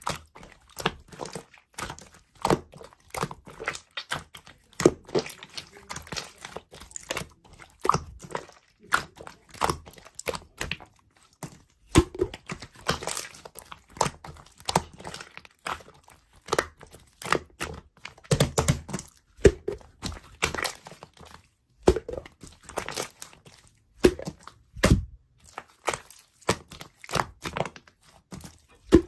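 Slime being pressed, squished and stretched by hand, giving a dense, irregular run of sticky clicks and crackling pops.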